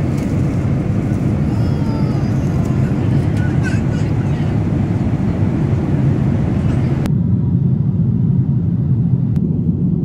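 Airliner cabin noise in flight: a loud, steady low rumble of engines and airflow. About seven seconds in, the higher hiss drops away suddenly, leaving only the low rumble.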